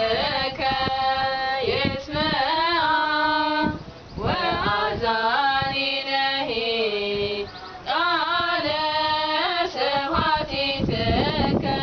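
Three women singing an Eritrean Orthodox Tewahedo mezmur (hymn) together, unaccompanied, in wavering, ornamented melodic lines. The singing breaks briefly for breath about four seconds in and again about eight seconds in.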